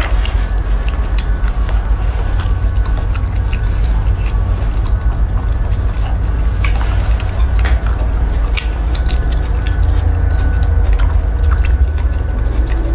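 Chewing: small mouth clicks and smacks from baby macaques and a person eating soft yellow fruit, over a steady low rumble.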